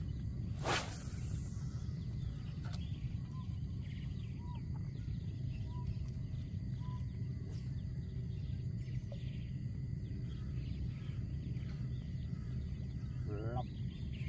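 Open-air ambience with a steady low rumble and scattered short bird chirps, broken by one sharp hissing hit about a second in.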